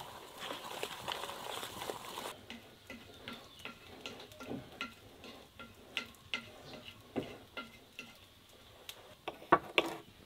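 Wire whisk stirring flour into batter in an enamel bowl, a dense scratchy sound that cuts off about two seconds in. Then scattered light taps and clicks of utensils and bowls, with two sharp knocks near the end, as of small clay bowls on a wooden table.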